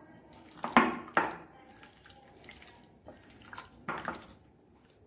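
Hands squelching raw chicken pieces through a thick yogurt marinade in a glass bowl: a few short wet squishes and slaps, the loudest about a second in, more around three to four seconds in.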